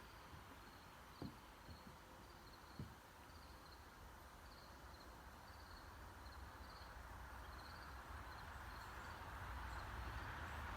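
Faint insect chirping, short chirps repeating at a steady rhythm, with two soft knocks, the first about a second in.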